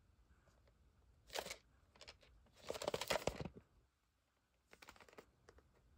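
A VHS tape in its cardboard sleeve being handled and turned over: a brief rustle, then a longer scraping rustle, then a few light ticks near the end.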